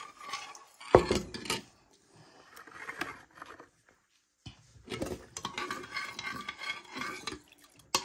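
A metal spoon stirring and scraping in a granite-coated saucepan of water, clinking against the pot, with a sharp knock about a second in. A short lull in the middle, then the stirring and clinking resume.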